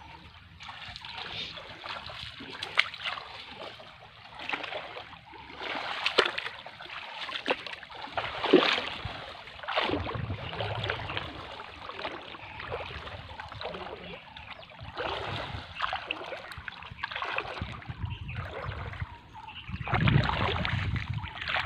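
Shallow lake water splashing and sloshing in irregular bursts as a person wades through it, with a low rumble near the end.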